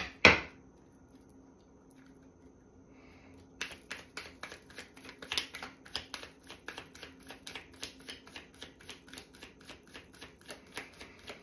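A deck of cards being shuffled by hand: after a quiet pause, a fast run of short slapping clicks, several a second, that goes on to the end.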